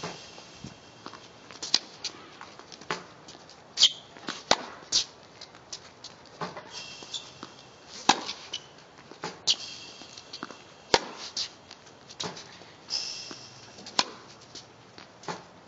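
Tennis balls struck by a racket and bouncing on a hard court: sharp pops about once or twice a second, with no steady rhythm. Short high squeaks, like shoes on the court surface, come a few times.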